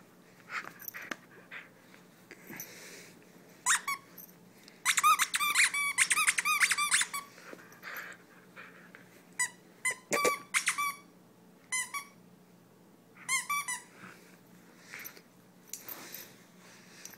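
Squeaker in a plush dog toy squeaking again and again as a German Shepherd puppy bites and tugs on it: a few squeaks, then a rapid run of them, then shorter bursts.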